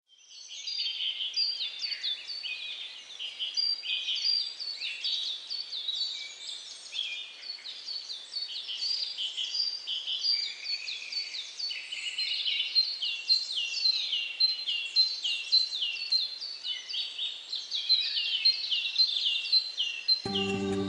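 Many small songbirds chirping and singing at once: a dense, continuous chorus of quick, downward-sliding notes. Music comes in near the end.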